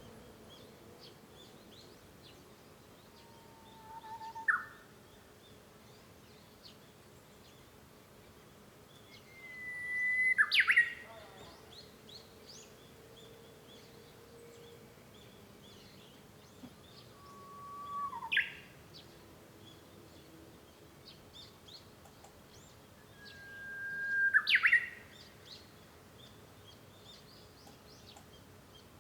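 Japanese bush warbler (uguisu) singing its 'hoo-hokekyo' song four times, about every six to seven seconds: each a long held whistle that swells, then a quick bright flourish. Faint short high chirps come between the songs.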